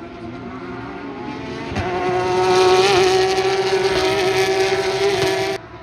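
Porsche Carrera Cup race car's flat-six engine held at high revs, faint at first, then much louder from about two seconds in as a car comes by. It cuts off suddenly near the end.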